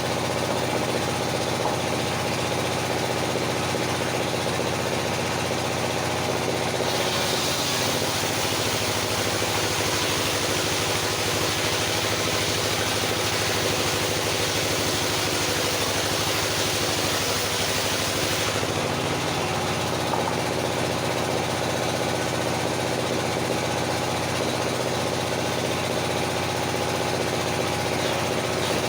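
Engine-driven circular sawmill running steadily. For about ten seconds in the middle a hissing rasp joins in as the blade cuts through wood, and the engine note shifts under the load before it settles back.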